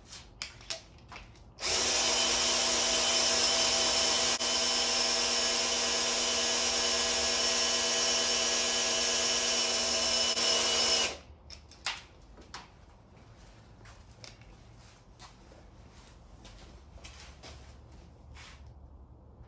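Cordless drill spinning an oil-pump priming tool in a freshly built V8, pumping break-in oil up to the lifters and rockers. It runs at a steady pitch for about nine seconds, starting about two seconds in and stopping abruptly. Light clicks and knocks come before and after it.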